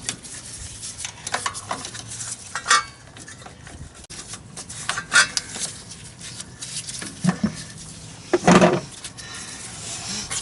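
Hand tools and metal fasteners clinking, clicking and scraping at irregular intervals while a bolted cover is worked loose, with a louder knock about eight and a half seconds in.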